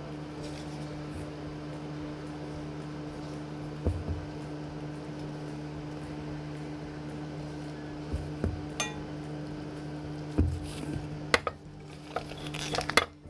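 Silicone spatula scraping and knocking against a stainless steel mixing bowl as ladyfinger batter is folded and scooped into a piping bag, with a few knocks and sharper clinks near the end. Underneath, a steady low hum that stops about eleven seconds in.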